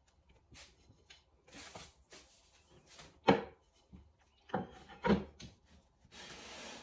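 Aluminum bat insert being handled and set down into its mother bat on the pottery wheel: a few sharp knocks, the loudest about halfway through, followed near the end by hands rubbing across the plate.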